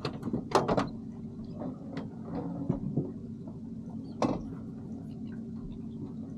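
Irregular knocks and clatters on a boat deck as a landing net holding a mackerel is handled, with a quick cluster of knocks about half a second in and another sharp knock about four seconds in, over a steady low hum.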